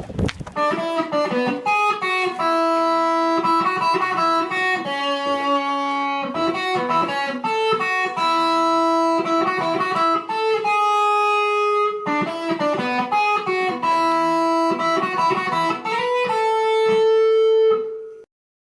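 Background music: a plucked guitar melody of single notes, cutting off suddenly near the end.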